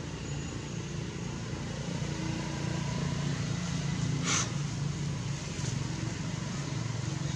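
Steady low engine rumble, like a motor vehicle running nearby, with a single sharp click about four seconds in.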